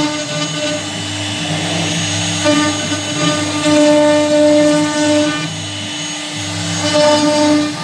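CNC router cutting a door panel: a steady machine whine that swells and eases every second or two as the cut goes on.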